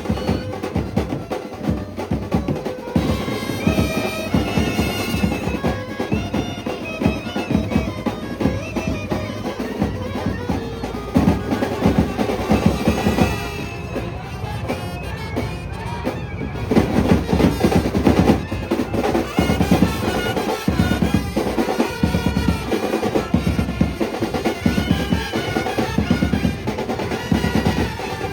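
Indian brass band playing a processional tune with horn melody over dense snare and bass drum beats; the drums ease off briefly around the middle.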